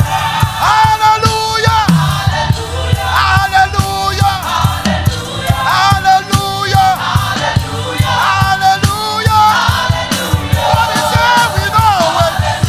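Gospel choir singing with a live band: held, sliding sung lines over a steady heavy bass and regular drum beats.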